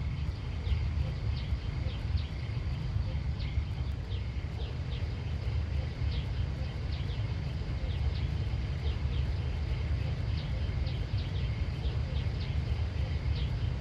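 Outdoor ambience: a steady low rumble with short, high chirps repeating a few times a second, likely small birds or insects.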